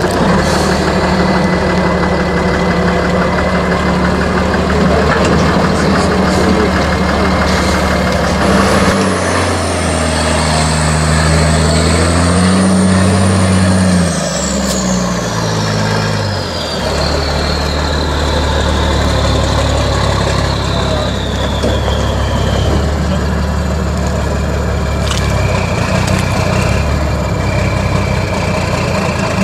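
LIAZ 706 trial truck's diesel engine working through deep mud, running steadily, with the revs climbing about nine seconds in and dropping back a few seconds later. A thin high whine slides slowly down in pitch over the middle of the stretch.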